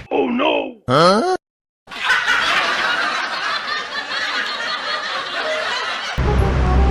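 Laughter sound effect cut into the audio: a short wavering, high-pitched giggle, about half a second of silence, then about four seconds of laughter. The low street-traffic and music sound cuts out for it and comes back near the end.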